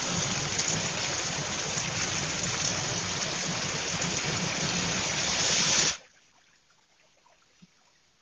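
Heavy rain pouring down, a dense steady hiss; it cuts off abruptly about six seconds in, leaving near silence.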